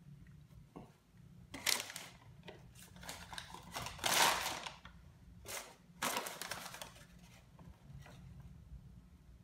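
Paper and foil fast-food bags crinkling as they are handled, in several short bursts.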